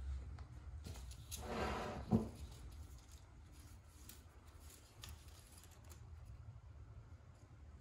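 Leaves rustling as a hand brushes through potted orchid foliage: one brief rustle about a second and a half in, ending in a soft knock, then faint scattered ticks over a low rumble of handling.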